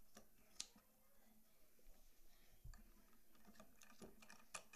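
Faint clicks of scissors cutting paracord: one sharp click about half a second in and a few more near the end, with little else heard.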